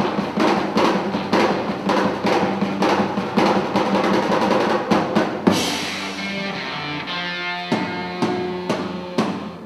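Drum kit played in a fast, busy beat of snare, bass drum and cymbals, breaking off with a crash about five and a half seconds in; after that, ringing pitched notes hold over a few scattered drum hits.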